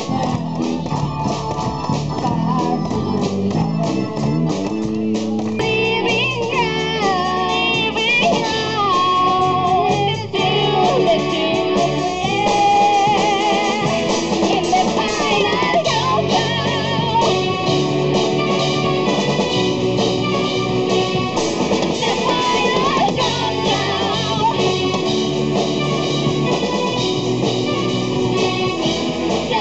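Live band music: guitar and electronic keyboard over a steady drum beat, with a voice singing from about six seconds in.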